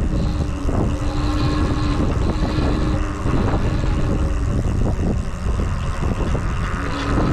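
Riding noise from a RadRunner e-bike under way: wind rumbling on the microphone and tyre and road noise, with frequent small knocks and rattles. A steady hum comes in just after the start, fades about three seconds in, and returns near the end.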